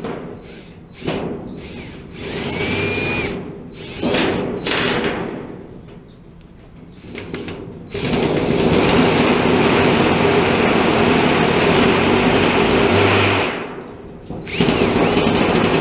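Cordless drill running in several short bursts, then a long steady run of about six seconds, a brief pause and another run near the end.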